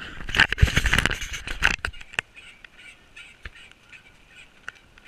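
Pedal go-kart rattling and clattering as it is ridden, with a burst of knocks and rattles in the first two seconds, then fainter scattered ticks.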